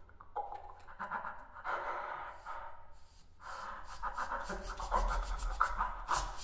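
Experimental chamber music built from breath and noise: breathy air sounds and scratchy, rubbing noises from a bass flute and hand-held objects. About halfway through it turns into a denser, rapid fluttering rattle.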